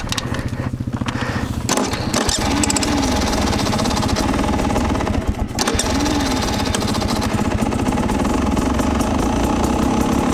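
Beta 300 two-stroke dirt bike engine idling as its idle is turned up by hand at the carburettor, the throttle cable having snapped. The idle steps up louder and faster about two seconds in and holds at the higher speed.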